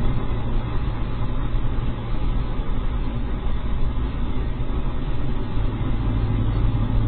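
Car engine and tyre noise heard from inside the cabin while driving, a steady low hum.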